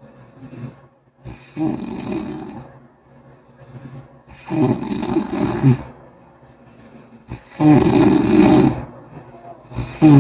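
A person snoring loudly with a wet, bubbling sound. There are three long snores about three seconds apart, each louder than the last, with quieter breaths between them and a fourth snore starting near the end.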